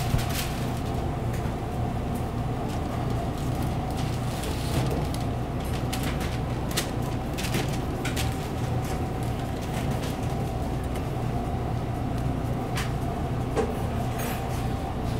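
Steady low mechanical hum of a commercial kitchen, with scattered light clicks and taps as burgers are handled on the cutting board.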